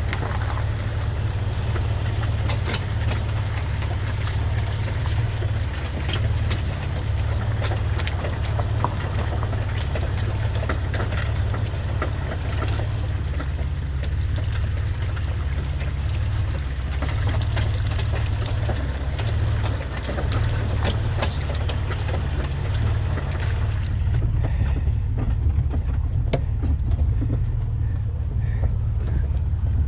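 Four-wheel-drive vehicle driving slowly through deep water in the rain: a steady low engine drone with water splashing and sharp knocks and clicks over it. The splashing and clatter die down about 24 seconds in, leaving mostly the drone.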